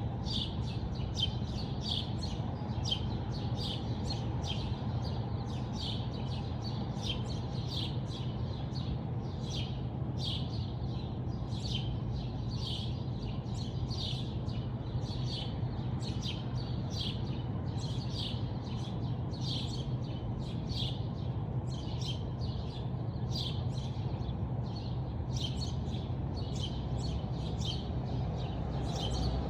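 Small birds chirping, short chirps repeating about twice a second without a break, over a steady low background hum.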